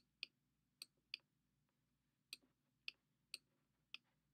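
About eight sharp, irregularly spaced clicks of a stylus tip tapping a digital writing tablet as handwriting is put down stroke by stroke.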